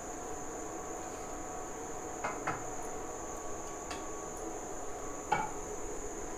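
Crickets trilling steadily in the background, with four short light clicks, the loudest about two and a half and five seconds in.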